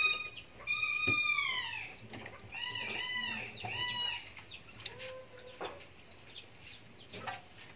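An animal calling with high, clear cries: one long call falling in pitch about a second in, then a quick run of four or five short rising-and-falling calls, fading to fainter calls after.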